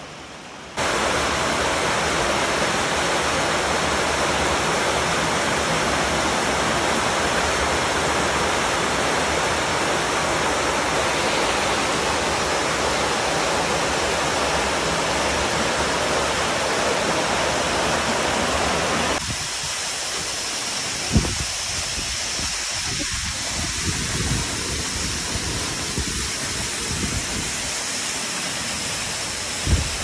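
Steady rush of the Shakuran river's cascades and waterfall, a dense even roar of falling water. It starts suddenly about a second in and drops to a lower level about two-thirds of the way through, after which low gusts of wind on the microphone and a sharp knock come through.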